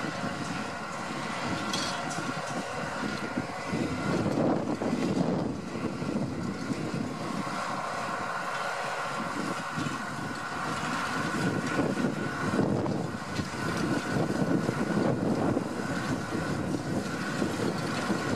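Deutz-Fahr 6155 tractor working a power harrow: the diesel engine runs steadily under load, its level wavering gently.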